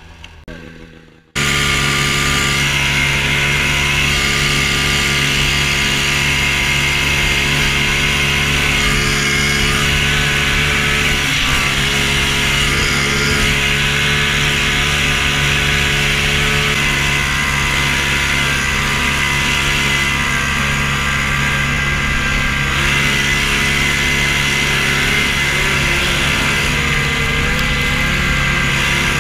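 Old snowmobile's engine running hard at a steady, unchanging pitch under a steady rushing noise, as the sled is ridden at speed. The loud run cuts in abruptly about a second in, after a quieter moment.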